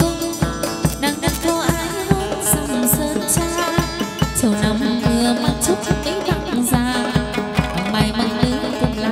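Live chầu văn ritual music: a plucked-string melody over a steady, quick drum beat, with occasional sharp high strikes.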